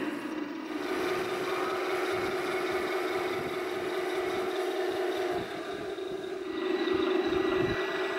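Tamiya 1/16 full-option radio-controlled Tiger I tank driving and turning: a steady mechanical running drone from its drive motors, gearbox and sound unit's engine noise, a little louder near the end.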